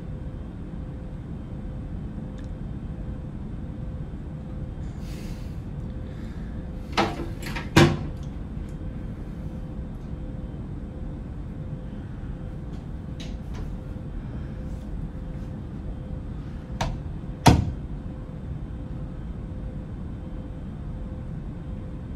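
Plastic toilet seat and lid clacking down, two knocks less than a second apart, then another pair of knocks about ten seconds later. A steady low hum runs underneath.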